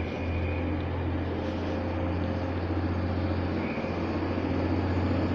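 Diesel engines of two coupled Class 185 diesel multiple units working as the train pulls away from the platform, a steady low drone that grows gradually louder.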